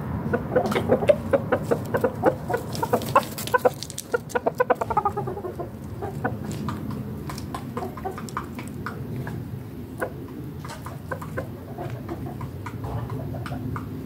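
Rooster clucking in a fast run of short clucks, about five a second, the last few sliding down in pitch; after that only occasional fainter clucks over a low background rumble.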